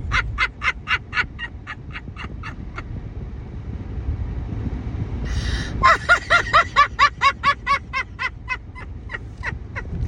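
A woman laughing hard at her own joke in quick rhythmic bursts, then a sharp breath in about five seconds in and a second bout of laughter.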